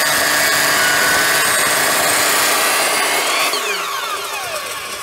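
Handheld circular saw running and cutting through a wooden beam. About three and a half seconds in, the trigger is released and the blade spins down with a falling whine.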